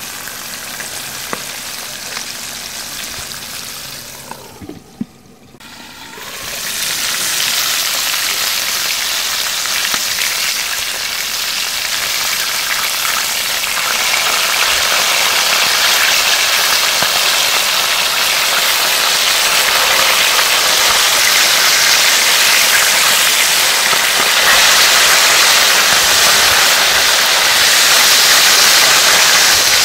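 Flour-coated fish frying in hot oil, a steady sizzle. It drops away briefly about five seconds in, then comes back louder.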